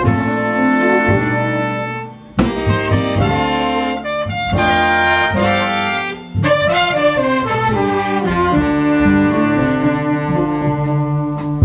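Hard-bop jazz band playing: saxophone and trumpet ensemble lines over bass and drums, with brief breaks in the phrase about two and six seconds in.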